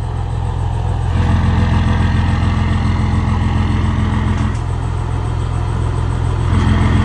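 Old FNM truck's 112 diesel engine running at a steady speed through a diffuser exhaust with a deep, loud note. The note swells about a second in, drops back around four and a half seconds, and swells again near the end, without the pitch changing.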